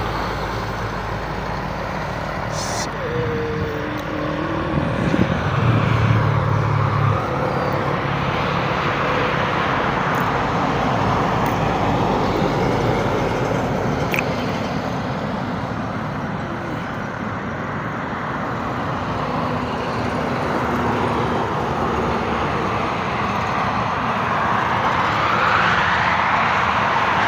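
Highway traffic with trucks passing: continuous tyre and engine noise that rises and falls as vehicles go by, with a heavier engine passing about five seconds in and another vehicle approaching near the end.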